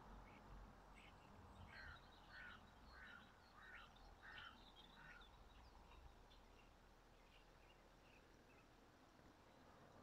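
Faint bird calls: a run of about six short calls, spaced a little over half a second apart, starting about a second and a half in, then a few fainter ones trailing off, over quiet outdoor background.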